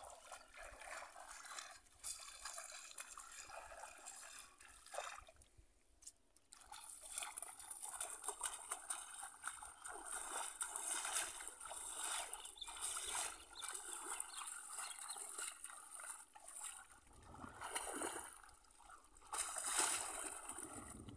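Shallow muddy water splashing and sloshing as hands grope through bamboo polo plunge-basket fish traps, in uneven swells, loudest near the end.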